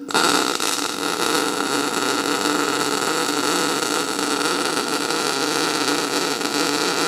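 MIG welding arc on CO2 shielding gas, steadily hissing and crackling as a weld bead is run joining two metal plates. It strikes up suddenly and holds level.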